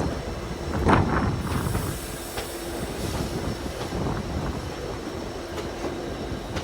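Poorna Express passenger train running on the ghat line: wheels rumbling and clattering over the rails, with a louder knock about a second in and a thin steady wheel squeal.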